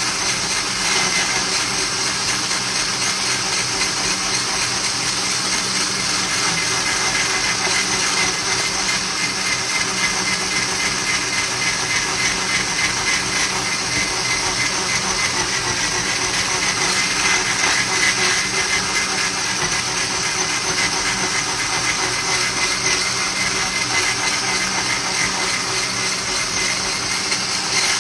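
Handheld electric blender with a whisk attachment running steadily as it whips egg yolks with sugar in a plastic jug: a constant motor noise with a thin high whine.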